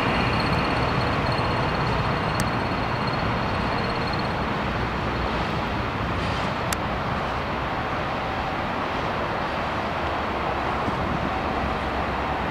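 Class 218 diesel-hydraulic locomotive and its Kirow rail crane train rolling slowly past, engine running and wheels on the rails, easing off over the first few seconds as the train draws away and then holding steady. A thin high squeal sounds for the first four seconds or so, and there are a couple of faint clicks.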